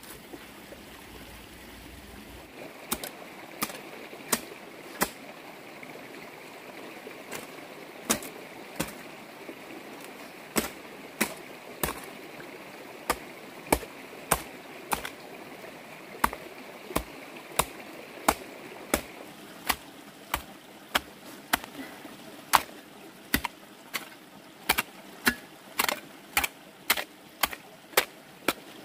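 A digging tool striking the ground over and over, about one to two blows a second, with a few short pauses between runs of strokes.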